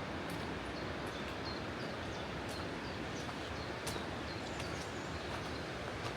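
Steady rushing of a flowing river, with a small bird giving short high chirps over it, about twice a second throughout.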